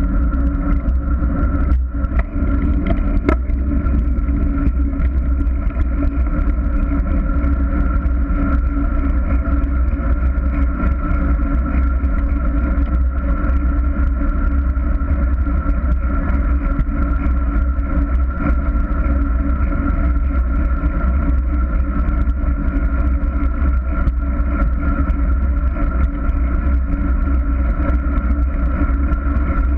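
Steady wind rush and deep rumble buffeting the microphone of a camera mounted on a moving bicycle, with a steady underlying hum.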